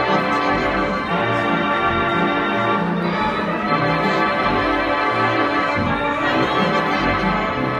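Restored Robert Morton theatre pipe organ playing music: full sustained chords over low bass notes that change about once a second.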